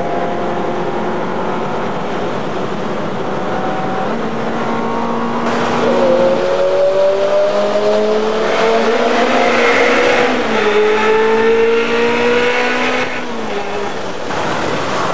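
Ferrari engine accelerating hard through the gears, heard from inside the car. Its pitch climbs, drops back at a shift about ten and a half seconds in, and climbs again. It is loudest in the middle and eases off about thirteen seconds in.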